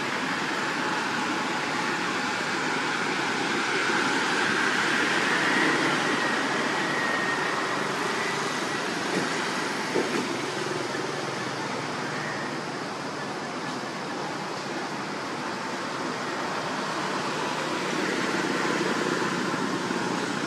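Steady outdoor background noise, an even hiss-like wash with no clear single source, with two brief faint clicks about nine and ten seconds in.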